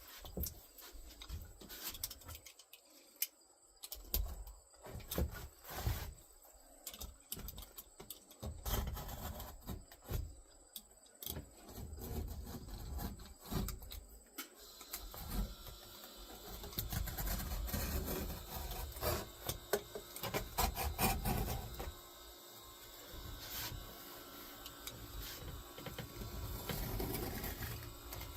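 Scattered light knocks and taps on wood, then about halfway through steadier rubbing and scraping with more knocks, as a wooden furniture dolly is worked on and handled.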